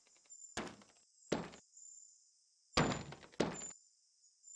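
Four dull, sharp thunks, each dying away quickly: one about half a second in, another about a second later, then two in quick succession near the end.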